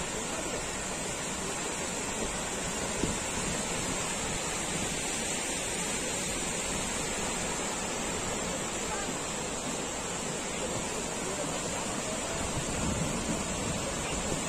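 Steady rushing of floodwater left by heavy rain, with one brief knock about three seconds in.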